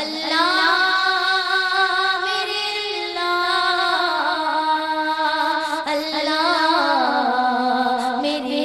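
A woman singing a hamd, an Urdu devotional hymn in praise of Allah, solo into a microphone. She draws out long held notes that slide up and down in pitch.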